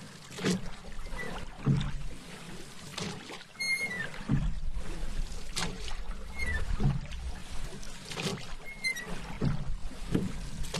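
Paddle strokes in water from a small boat: a rhythmic dip, pull and swirl about every second and a quarter. A short high squeak, slightly falling, comes every couple of strokes.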